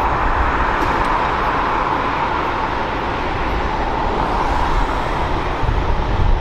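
Road vehicle noise: a steady rush of engine and tyre noise, with no siren.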